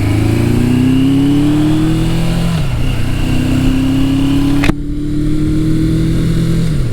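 1982 Suzuki GS750E's air-cooled inline four-cylinder engine pulling away under load. Its note rises through a gear, falls at an upshift about two-thirds of a second before the halfway point, climbs again and falls at a second upshift near the end, with a sharp click just past the middle. The engine is not yet running cleanly, and the rider calls it bogging.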